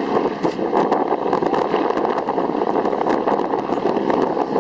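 A Boeing Stearman biplane's radial engine running steadily under power, with a dense crackling drone, as the aircraft flies an aerobatic turnaround.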